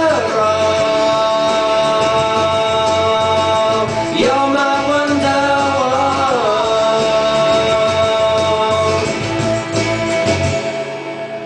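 A man singing long held, wordless notes into a microphone over backing music, his voice gliding between pitches. The music fades away near the end.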